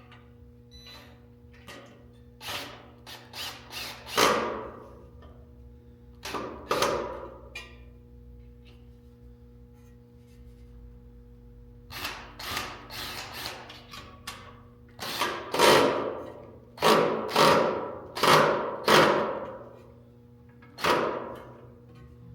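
Irregular knocks and clunks of metal stand parts being fitted and tapped together, in clusters with short ringing tails, louder in the second half. A low steady hum runs underneath.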